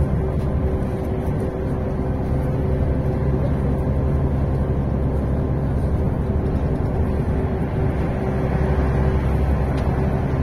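GolAZ AKA-5225 articulated city bus driving at a steady speed. Its engine drone and road rumble are heard from inside the passenger cabin, with a steady low whine over the noise.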